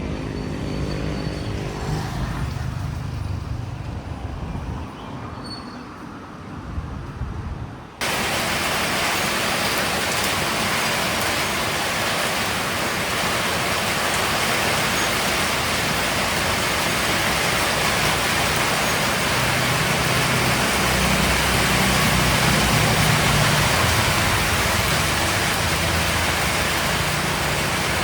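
Traffic with a motor vehicle's engine at first, then about eight seconds in an abrupt cut to rain falling steadily, an even hiss that runs on unchanged.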